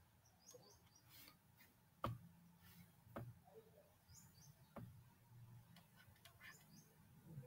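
Near silence: room tone with a few faint clicks and some faint, short, high chirps.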